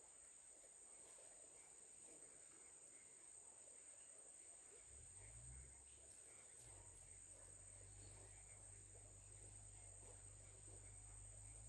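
Faint, steady high-pitched chirring of crickets. A low hum comes in about five seconds in and continues.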